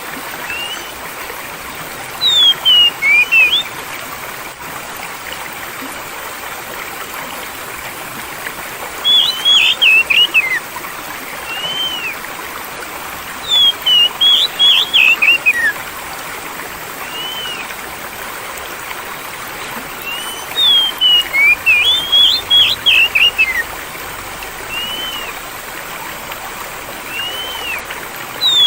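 Songbird song over steady running water. Four loud bursts of quick, high chirping notes, each a second or more long, come every several seconds. Single rising-and-falling whistled notes fall in between.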